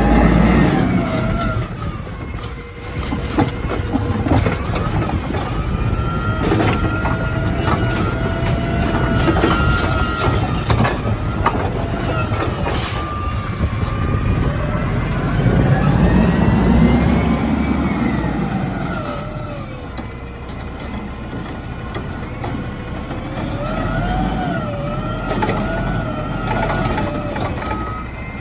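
Autocar WX refuse truck working an automated side-loader arm: the diesel engine revs up and down to drive the hydraulics, giving a whine that rises and falls, with metal clanks from the arm and cart. Short bursts of air-brake hiss come near the start and again about two-thirds through.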